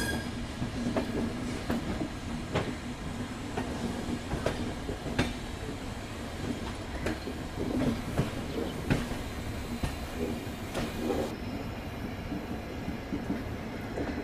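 LHB passenger coaches rolling slowly over points and rail joints: a steady rumble with irregular sharp wheel clicks, roughly one a second.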